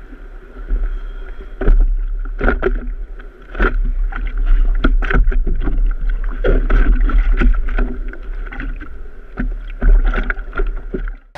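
Surfboard being paddled through choppy sea: hands stroking the water and repeated splashes close to the microphone over a heavy low rumble of water.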